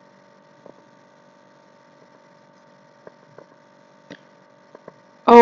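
Faint steady electrical hum with a few soft, scattered clicks.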